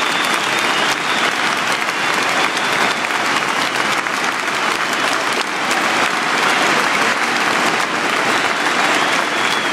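Large football stadium crowd applauding steadily, with sharp hand claps from fans close by standing out over the mass of clapping.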